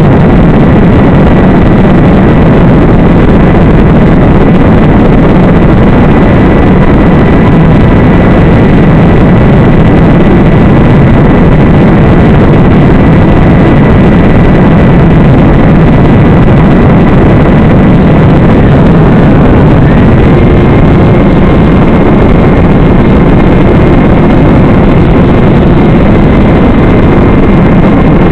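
Loud, steady motor-and-propeller drone from a small electric FPV model aircraft's onboard audio, heard through a noisy, distorted analog video link. A thin steady whine rides on top and steps slightly higher in pitch about twenty seconds in.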